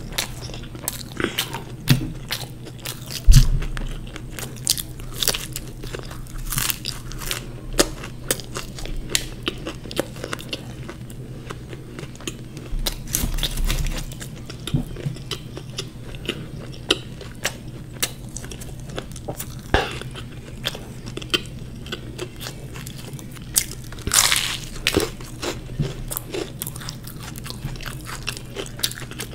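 Close-miked biting and chewing of crisp fried samosas: the pastry crunches and crackles in many short sharp bursts. One loud thump about three seconds in.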